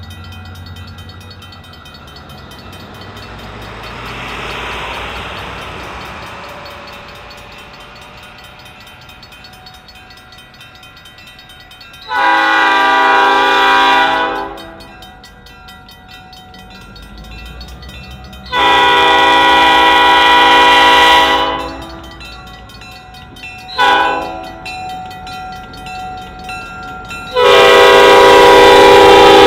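EMD GP9 diesel locomotive sounding its multi-tone air horn for a grade crossing in the standard pattern: two long blasts, one short, then a final long blast held through the end. Beneath the horn is the low rumble of the locomotive rolling slowly toward the crossing.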